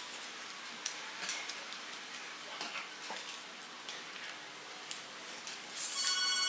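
Small plastic toy-robot parts clicking and clattering as they are snapped together and handled, in scattered light clicks. Near the end a brief whine with several tones comes in and grows louder.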